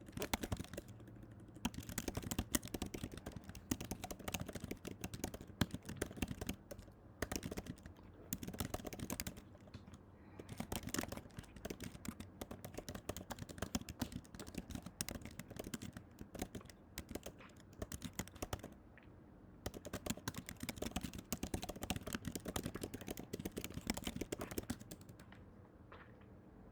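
Rapid, irregular clicking and tapping in bursts with short pauses, stopping near the end.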